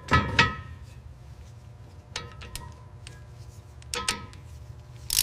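Sharp metallic clicks and clinks of tools and metal parts being fitted, a few spaced taps with a short ring, over a low steady hum.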